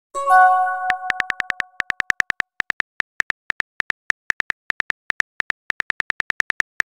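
Texting-app sound effects: a bell-like message chime near the start that rings out and fades over about a second and a half, then a rapid, even run of short keyboard typing clicks as the next message is typed.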